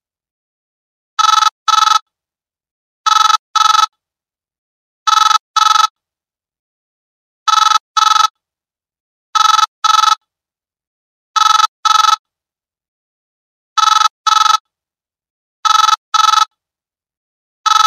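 Old telephone ringtone ringing in pairs of short rings, a double ring repeated about every two seconds.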